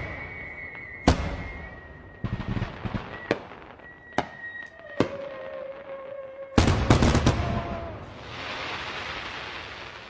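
Fireworks going off: scattered sharp bangs, then a rapid cluster of bangs about six and a half seconds in, then a steady hissing crackle.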